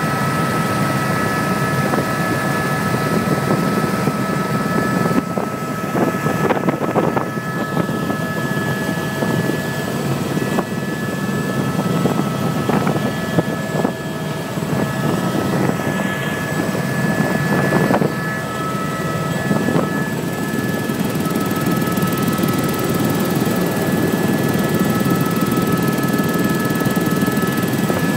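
Helicopter in flight, its engine and rotor running steadily: a constant low rumble with several high whining tones held over it.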